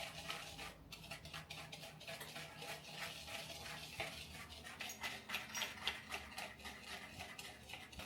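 Whisking matcha powder and sugar by hand in a bowl: a quick run of light scraping and tapping strokes, several a second, that carries on throughout.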